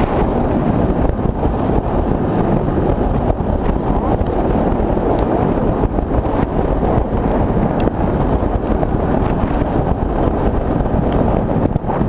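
A motorcycle ridden at highway speed: steady wind noise on the microphone over the bike's running and the tyres on the road.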